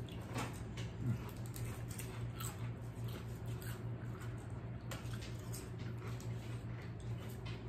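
Close-up eating sounds: chewing and lip smacks, and fingers picking at crinkling paper sandwich wrappers, as scattered short clicks over a steady low hum.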